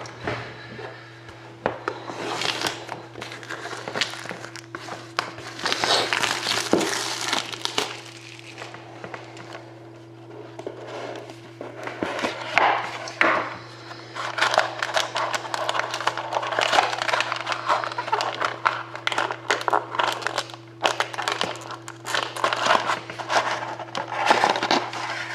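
Plastic shrink-wrap being torn and crinkled off a sealed trading-card box, in irregular bursts over a steady low hum.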